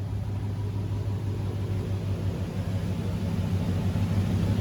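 Car engine with its catalytic converters cut out, running on a chassis dyno: a steady low drone that grows gradually louder.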